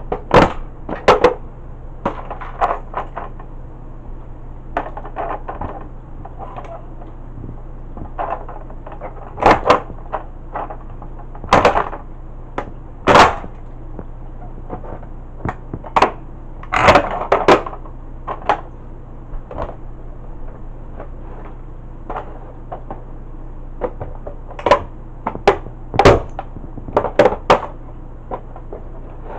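Plastic toy Tonka tow truck being crushed under a cowboy boot: irregular sharp cracks, snaps and knocks of the plastic body, coming in clusters.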